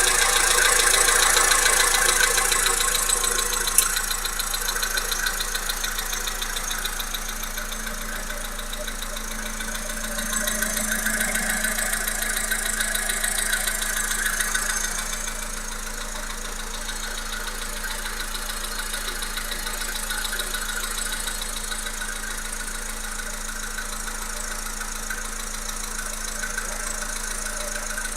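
Volkswagen Polo Sedan's 1.6 CFNA four-cylinder petrol engine running with a rhythmic knock from the motor. It swells louder twice, near the start and again about halfway through, then settles back to a steady run.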